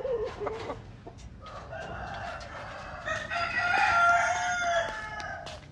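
Rooster crowing. A short call at the start, then one long crow that builds over about four seconds and is loudest near its end.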